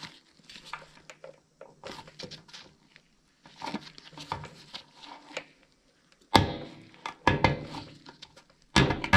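Gloved hands working a cable and a plastic cable tie: light rustling and small clicks, with louder knocks about six seconds in and again near the end.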